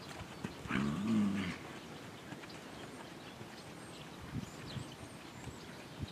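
Tennessee Walking Horse mare gives one low groan about a second in, lasting under a second, a sound she makes all the time. Her hooves beat softly in the sand under a rider.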